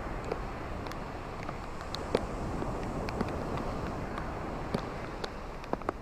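Ocean waves washing onto a beach: a steady wash of surf that swells a little in the middle, with scattered sharp clicks and ticks through it.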